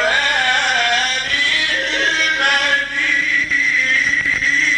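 A male Quran reciter chanting in the melodic mujawwad style: one long ornamented line that bends up and down in pitch, settling into a held, steadier note about three seconds in.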